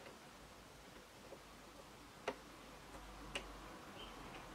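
Two sharp, faint clicks about a second apart, as small scissors tap against the sewing machine's metal needle plate while picking up the threads.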